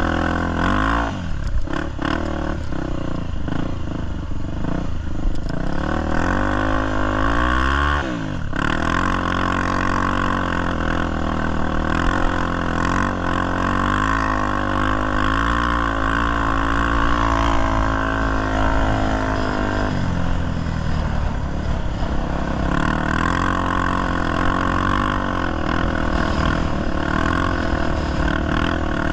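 Honda XR250 Tornado motorcycle's single-cylinder engine running under load off-road, its pitch rising and falling with the throttle. It climbs steadily and then drops sharply about eight seconds in, before running more evenly.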